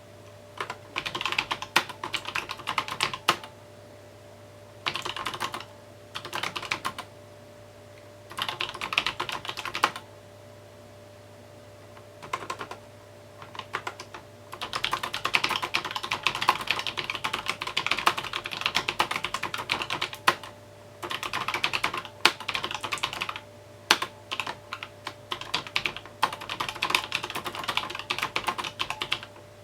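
Typing on a mechanical keyboard. Short bursts of key clicks with pauses between them give way, about halfway through, to a long run of nearly continuous typing. A faint steady hum runs underneath.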